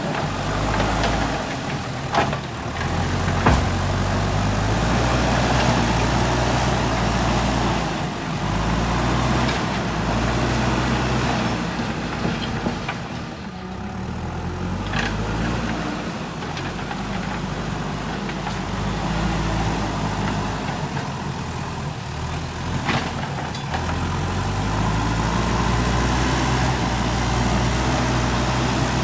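JCB 3DX backhoe loader's diesel engine running under working load, its revs rising and falling repeatedly as the hydraulics work. A few sharp knocks are heard along the way.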